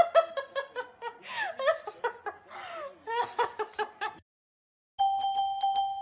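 A woman giggling and squealing in quick bursts. It cuts off about four seconds in, and after a brief silence a chiming bell-like melody starts.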